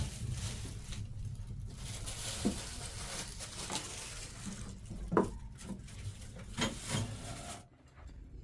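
Faint handling noises: scattered clicks and rustles, with a few short squeaks, over a low steady rumble that drops away near the end.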